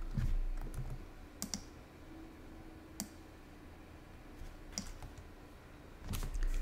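Computer keyboard keys clicking in scattered single taps a second or more apart, then a few quicker keystrokes near the end, with a low dull thud at the start and again near the end.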